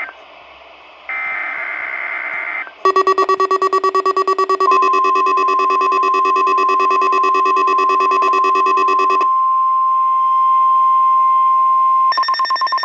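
NOAA Weather Radio weekly test alert: a harsh digital SAME header burst about a second in, then a receiver's alarm beeping rapidly from about three seconds, and the steady 1050 Hz Warning Alarm Tone from about five seconds until about twelve seconds. Rapid alarm beeping returns near the end.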